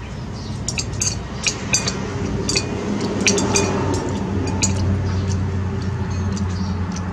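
Metal chopsticks and a spoon clinking against a ceramic plate: a scatter of sharp, short, ringing clinks, most of them in the first five seconds, over a steady low hum.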